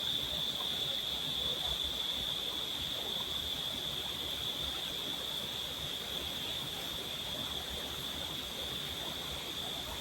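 Steady high-pitched insect chorus, unbroken, over the even rush of river water.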